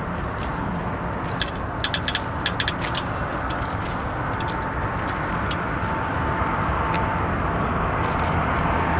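Jet engine noise from an Airbus A300-600ST Beluga's two General Electric CF6-80C2 turbofans on final approach: a steady rumble with a faint high whine that grows louder over the last few seconds as the plane nears. A short cluster of sharp clicks about one and a half to two and a half seconds in.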